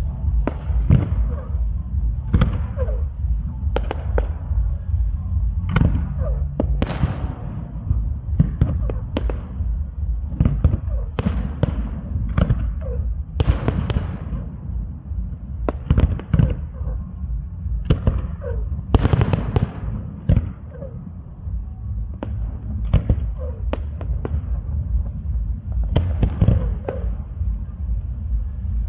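Aerial fireworks shells bursting in a display: a long run of sharp bangs at irregular intervals, about one or two a second, some much louder than others, over a constant low rumble.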